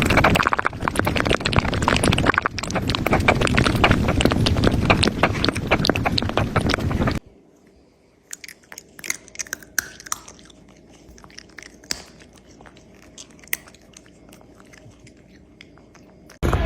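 A cat chewing and crunching loudly close to the microphone for about seven seconds. Then it cuts suddenly to a much quieter stretch with scattered small clicks.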